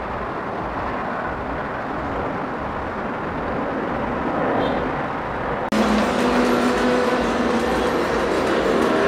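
Jet airliner engine noise: a steady rush that slowly grows louder. About two-thirds of the way through it breaks off abruptly and is replaced by louder engine noise carrying several steady humming tones.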